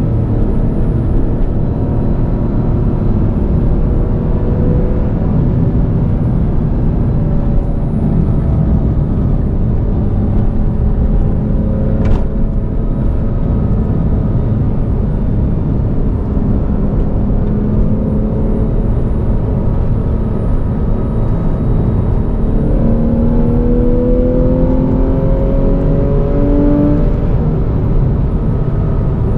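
2014 Porsche 911's flat-six engine running at cruise under a heavy low rumble of wind and road noise, its note climbing steadily under acceleration for a few seconds near the end. A single sharp click about twelve seconds in.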